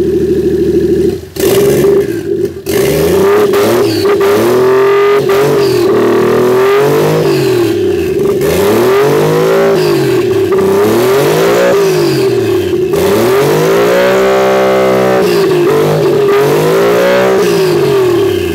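Toyota 1JZ-GTE VVT-i turbocharged straight-six running on its first start after fresh ECU wiring. After two brief dips in the first few seconds, it is revved up and down repeatedly, about once every two seconds, with one longer rev a little past the middle. A steady whine runs underneath.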